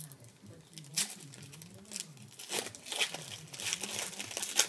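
Trading-card pack wrapper being torn open and crinkled, with sharp crackles about a second in and again through the second half.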